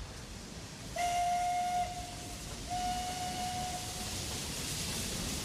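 Steam locomotive whistle blowing twice: a short blast about a second in, then a longer one just under two seconds later. A hiss of steam grows louder underneath.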